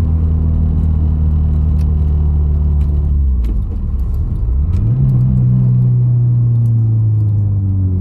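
2020 Subaru WRX's turbocharged flat-four engine heard from inside the cabin while driving. It holds a steady note, dips briefly about three and a half seconds in, then climbs to a higher steady pitch about a second later, with light clicks and rattles over it.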